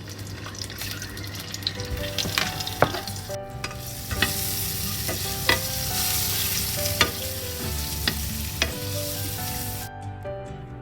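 Boiled eggs frying in a tablespoon of oil with chilli powder and garam masala in a non-stick pan, sizzling, with a utensil knocking against the pan every second or so as they are stirred. The sizzle cuts off suddenly near the end.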